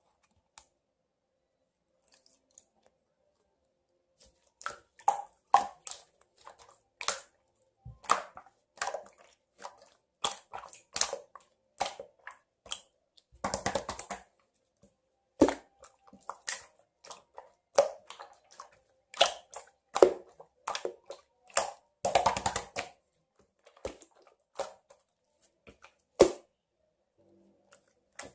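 Irregular close-up clicks and taps, about one or two a second, with two short spells of dense crackling, one near the middle and one about three quarters through; nearly silent for the first few seconds.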